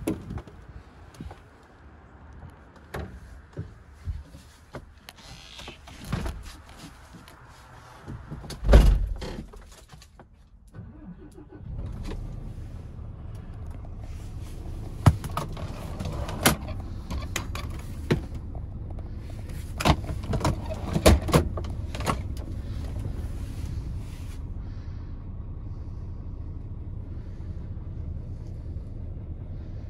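Knocks and clicks of handling inside a Scania S450 truck cab, with one loud heavy thump about nine seconds in. From about twelve seconds a steady low rumble sets in and carries on under the clicks: the truck's 13-litre straight-six diesel idling, heard from inside the cab.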